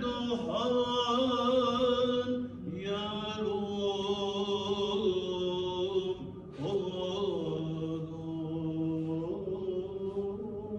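A man chanting a prayer solo in long, held melodic notes, with a short break for breath a little past the middle.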